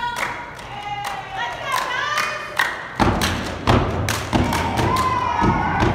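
Step team stomping and clapping a rhythm of sharp impacts, with voices calling out over it; about halfway through, a deeper steady layer joins.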